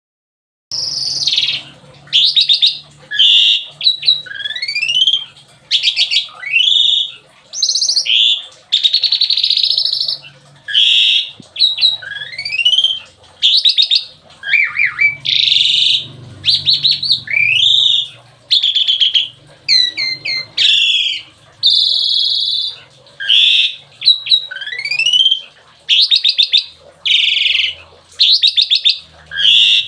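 Asian pied starling (jalak suren) singing loud bursts of song: rising whistles, fast rattling trills and harsh chatter in phrases of about a second, with short pauses between them.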